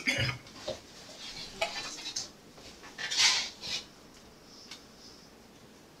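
Light clicks and knocks of objects being handled at a lectern, with a short rustle about three seconds in. After that it goes quiet.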